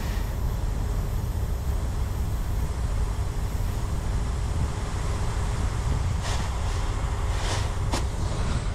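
Compressed air hissing through a tire inflator chuck held on a semi-trailer tire's valve stem, fed from the tractor's trailer air supply line, over a steady low vehicle rumble. A few short, sharp hisses come near the end as the chuck shifts on the valve.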